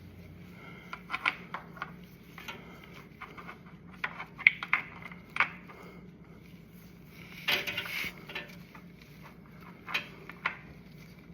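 Light metallic clinks and taps of tools and parts being handled while working on a motorcycle engine, with a short rattling scrape about two-thirds of the way through. A faint steady hum sits underneath.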